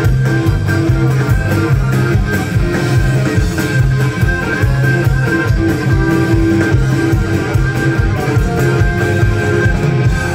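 Live rock band playing an instrumental passage with electric guitar, bass and a steady drum beat.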